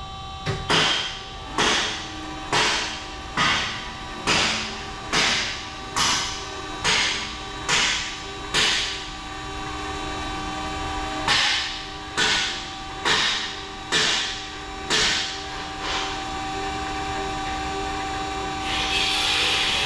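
Vertical band saw running with a steady hum. Over it come about sixteen short swishing bursts, a little under one a second, with a pause of a couple of seconds in the middle. A steady hiss starts near the end.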